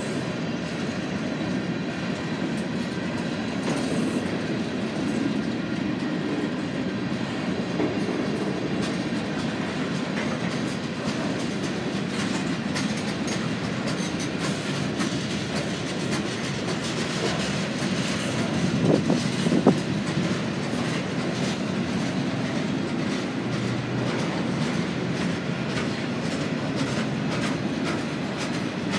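Freight cars of a mixed manifest train rolling past, wheels clicking over rail joints with a steady rumble. There are a couple of louder clanks about two-thirds of the way through.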